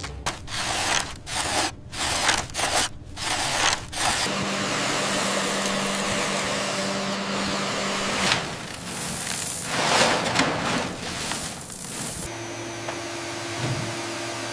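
Robot vacuum cleaner running over a sand- and dust-covered floor: a steady whirring hiss. It starts and stops abruptly several times in the first few seconds, then runs on with louder surges around the middle.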